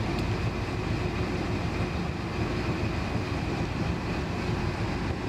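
The boat's engine running steadily, warming up toward operating temperature.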